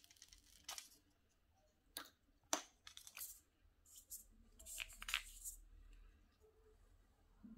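Thin clear plastic screen film peeled off an iPhone X and handled: a few sharp crackles and ticks, then a longer crinkle about five seconds in.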